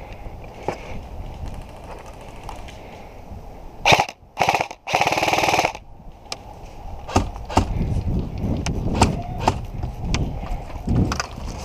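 Airsoft guns firing: scattered sharp single shots, with a loud rapid burst of automatic fire about five seconds in.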